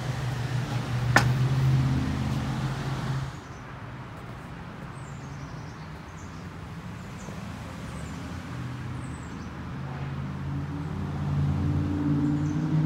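Low steady engine drone of road traffic, with a sharp click about a second in. For the first three seconds there is a hiss of chicken sizzling over charcoal on a grill, which stops abruptly. Small birds then chirp now and then while the traffic drone swells again near the end.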